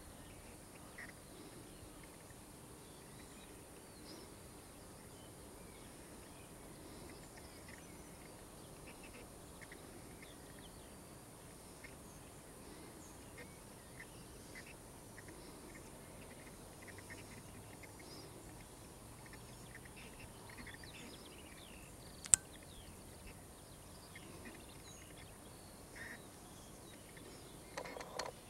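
Faint open-field ambience with scattered short, faint bird calls. A single sharp click about 22 seconds in is the loudest sound, and a brief noisy burst comes near the end.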